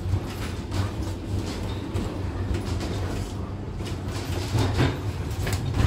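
Funicular car running along its rails, heard from inside the car: a steady low rumble with occasional faint clicks from the wheels on the track.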